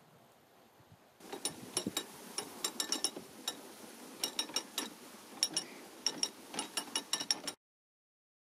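Canal lock paddle gear being wound with a windlass, its pawl clicking irregularly over the ratchet teeth. The clicking starts about a second in and cuts off suddenly near the end.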